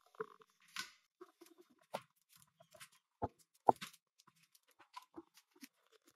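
Small cardboard drink cartons being set by hand into clear plastic organizer bins: a few faint, scattered taps and knocks, the sharpest a little over three seconds in.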